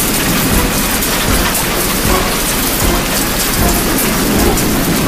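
Heavy typhoon rain pouring down in a loud, steady hiss, with a low rumble underneath.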